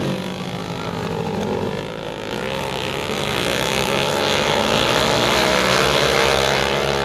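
Dirt-track racing motorcycles running hard around the oval, several engines at once, growing louder from a few seconds in as the pack passes close, then easing slightly near the end.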